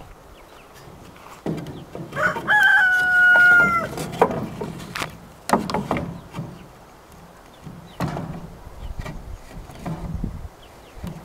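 A rooster crows once, about two seconds in, a single call lasting under two seconds. Scattered knocks and thumps come before and after it.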